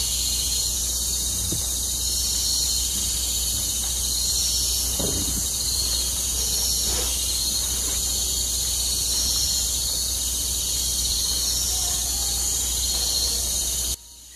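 Night chorus of crickets and other insects: a steady, high-pitched pulsing trill over a low steady hum. It cuts off suddenly near the end.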